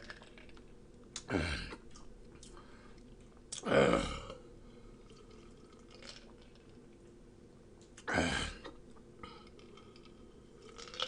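A person's heavy breathy exhalations, three of them a few seconds apart, each about half a second long and falling in pitch, with faint small mouth clicks between.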